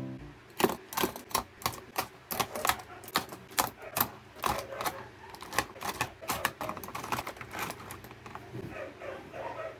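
Typing on a computer keyboard: a run of irregular key clicks, about two or three a second, some louder than others.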